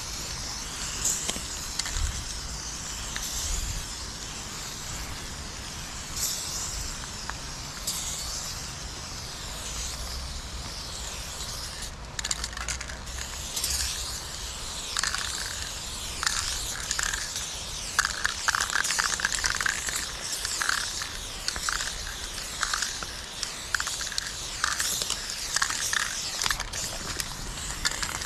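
Aerosol spray paint can hissing in long and short bursts as paint is sprayed onto a brick wall. Over the second half, a run of short sharp clicks comes in alongside the spraying.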